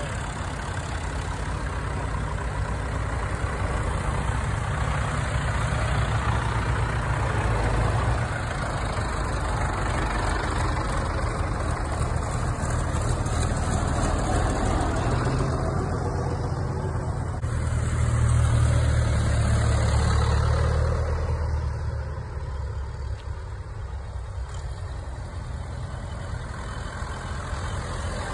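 A procession of tractors driving past one after another, their engines running steadily in a low hum. The sound swells as each one nears and is loudest about two-thirds of the way through as one passes close.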